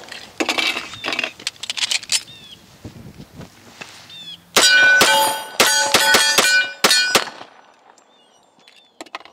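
A .45 ACP Kimber Team Match II 1911 pistol fired in a rapid string of about seven shots from a little over four seconds in, with steel targets clanging and ringing on between the shots. A few fainter sharp knocks come in the first couple of seconds.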